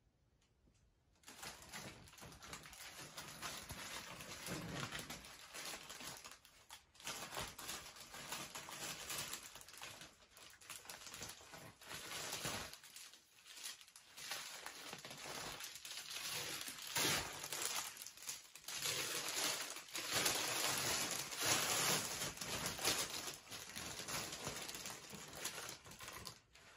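Gift packaging being crinkled and torn open by hand: a dense, irregular crackling that starts about a second in, with a few short pauses.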